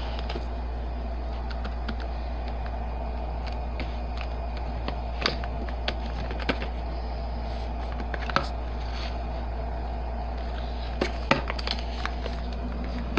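Steady low hum with a few scattered light clicks and taps of handling as a plastic blister pack of glue sticks is moved about in the hand.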